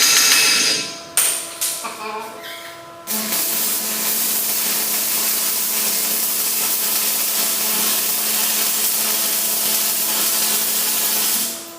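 Arc welder laying a weld: a steady hiss with a faint hum starts about three seconds in and runs about eight seconds, stopping just before the end. Before it, a short loud burst of noise fades out about a second in, followed by a few clicks.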